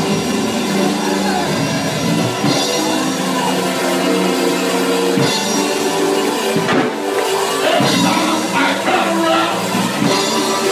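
Live gospel praise-break music: held organ chords over a drum kit beat.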